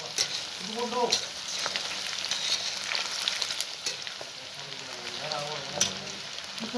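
Marinated country-chicken pieces deep-frying in hot oil, sizzling steadily, with scattered sharp clicks and scrapes of a ladle turning them in the pan.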